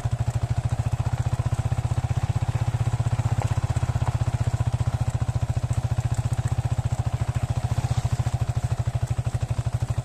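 Small motorcycle engine running steadily at low speed in an even, fast putter, heard from on the bike.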